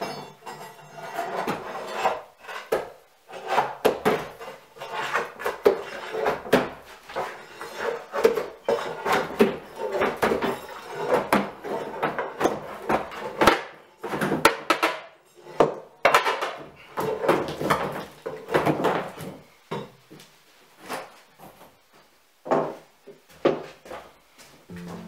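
Old cardboard floor covering being prised up with a pry bar and torn off wooden floorboards: irregular scraping, tearing and cracking of cardboard and wood.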